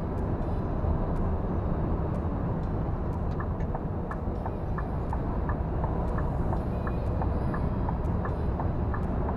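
Steady in-cab drone of a Scania R440 truck's six-cylinder diesel engine and tyre noise at highway speed. From a few seconds in until near the end, the turn signal ticks about three times a second, signalling a lane change to the left.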